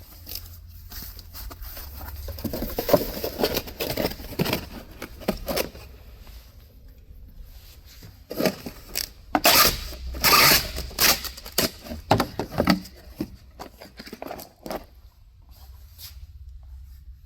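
Irregular rustling, scraping and knocking of parts and packaging being handled while packing, in two spells, over a steady low hum.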